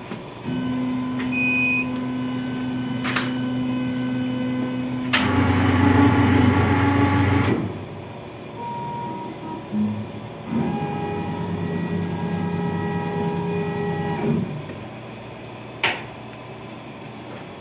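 A 1390 CO2 laser cutter just switched on, its motors whining at a steady pitch in three spells as the axes move and stop. The pitch changes from one spell to the next, and there are sharp clicks about five seconds in and near the end.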